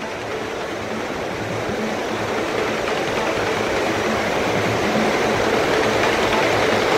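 Steady rushing of wind and sea water aboard a ship under way, growing gradually louder.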